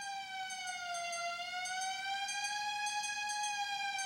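Fire engine siren wailing, its pitch slowly rising and falling, gradually growing louder.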